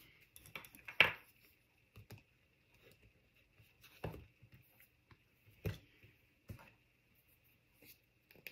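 A few sharp light taps and clicks, with soft rustles in between, as small paper-craft tools and card are handled and set down on a craft mat.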